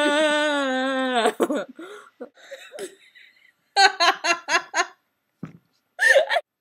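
Two women laughing hard: a long, drawn-out, slightly falling vocal note for about the first second, then broken giggles, and a quick run of sharp 'ha-ha-ha' laughs about four seconds in. The sound cuts off abruptly near the end.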